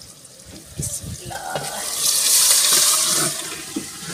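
Boiled tinda and chana dal, with their cooking water, poured from a steel pan into a hot curry pot over a wood fire: a rush of splashing and hissing that builds about a second in and lasts about two seconds.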